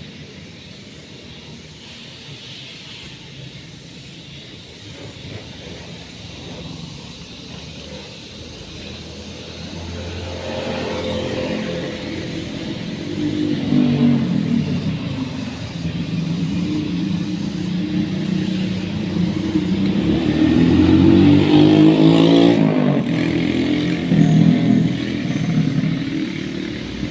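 An engine running, low at first, then louder from about ten seconds in, its pitch rising and falling as it is revved.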